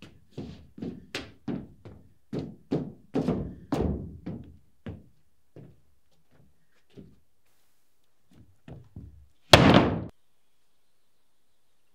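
Work-boot footsteps on thin OSB sheets laid loose over floor joists: a run of hollow thuds, about two to three steps a second, thinning out after about five seconds, then one heavier thump near the end.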